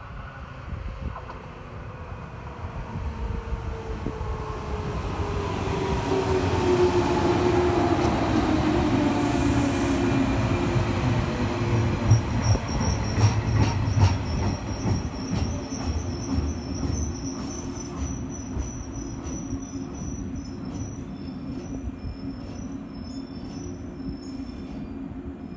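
JR West 115 series electric train running past the platform, its rumble swelling and then easing off. A motor whine falls in pitch over several seconds and then holds steady. A high wheel squeal and a run of clicks from the wheels follow from about halfway through.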